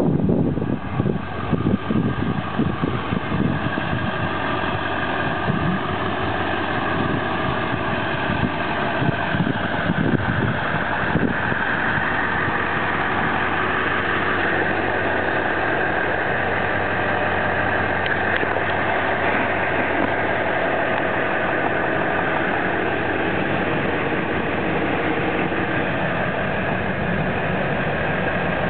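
1999 Ford F350's 7.3-litre Powerstroke turbo diesel V8 idling steadily, with wind buffeting the microphone during roughly the first ten seconds.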